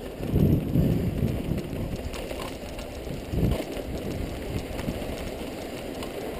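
Wind buffeting a helmet-mounted action camera's microphone, mixed with mountain-bike tyres rumbling over a dry dirt trail at speed. The rumble surges on rough ground, most strongly about half a second and three and a half seconds in.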